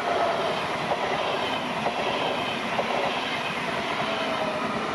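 Stadler KISS double-deck electric multiple unit passing at speed close by: a steady rush of wheels on rail, with a few sharp clicks and faint whines falling slightly in pitch.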